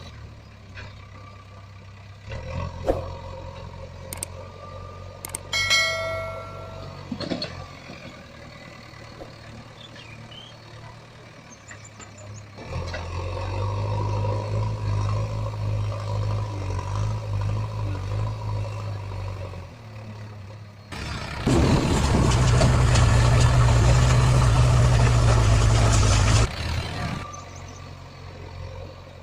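Excavator's diesel engine working under load. A few knocks and a short high squeal come first; then the engine runs up for about seven seconds, and then runs louder for about five seconds with a dense rushing noise over it.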